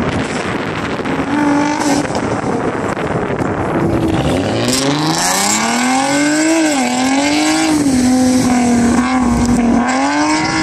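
Wind rumbling on the microphone, then from about four seconds in a Nissan 370Z Roadster's 3.7-litre V6 revving hard as the car is driven through an autocross course. Its pitch climbs, dips briefly, holds steady, then rises again near the end.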